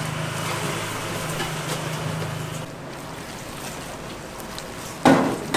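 Wet squelching and rustling of salted napa cabbage being tossed and rubbed with red chili seasoning paste and chives by rubber-gloved hands in a large stainless-steel bowl. A low steady hum runs underneath and stops about two and a half seconds in, and there is a short loud sound near the end.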